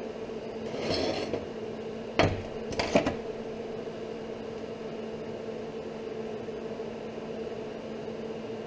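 Metal knocks and a scrape as a machined steel block and small hand tools are handled on a steel workbench: a scrape about a second in, then one sharp knock and two quick knocks about a second later. A steady low hum runs underneath.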